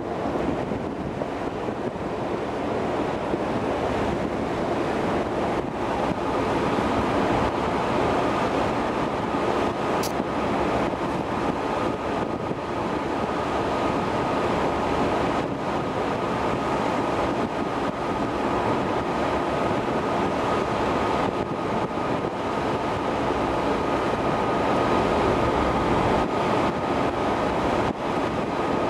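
Steady wind buffeting the microphone on a ferry's open deck, mixed with the rush of the sea. A faint steady high tone comes in about ten seconds in and holds.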